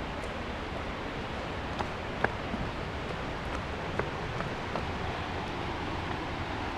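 Steady rush of falling water from a waterfall. A few short, sharp clicks stand out, about two and four seconds in.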